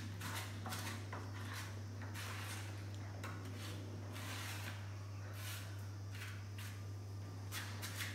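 Grout paste being pressed and rubbed by hand into the joints of terracotta brick cladding: a series of irregular soft scraping rubs, about one or two a second, over a steady low hum.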